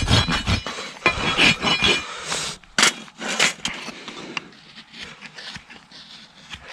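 A farrier's rasp filing a horse's hoof: several quick strokes at first, a longer stroke about a second in, then a few separate scrapes and light knocks that thin out and grow quieter.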